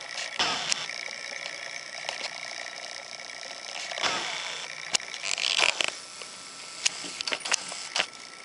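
Small Yorkshire terrier growling at a person's hand, with growl bursts about half a second and four seconds in. In the second half comes a run of sharp snaps as she lunges at the hand.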